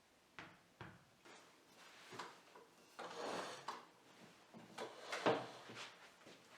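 A series of light knocks and clicks from kitchen items being handled, with a short scraping rustle about three seconds in. The loudest knock comes a little after five seconds.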